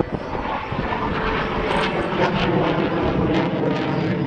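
Jet engines of a formation of F-16 fighter jets at high power, a steady loud rush of jet noise with a few sharp crackles between about two and four seconds in.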